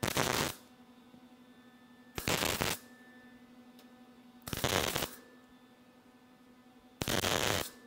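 MIG welder arc crackling in four real sharp bursts of about half a second each, roughly two seconds apart: short stitch welds on thin sheet-metal body panel, bridging over the gap in a cut-and-butt seam.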